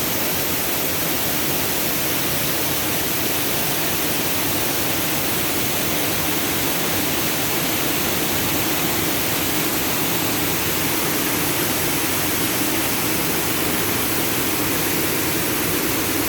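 Waterfall rushing: an even, unbroken roar of falling water.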